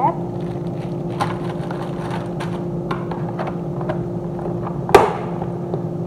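Plastic food containers being handled and set down on a freezer shelf: a few light plastic clicks and taps, then one sharp plastic knock about five seconds in. A steady low hum runs underneath.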